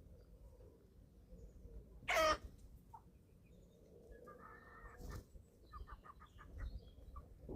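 Eleven-week-old chickens calling while they feed: one loud call falling in pitch about two seconds in, then a rougher call, a single click, and a quick run of short clucks near the end.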